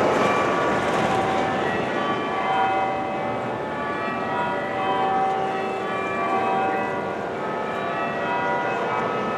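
Church tower bells being change-rung full circle, six bells striking one after another in a steady, overlapping sequence of ringing tones, over a continuous haze of road traffic.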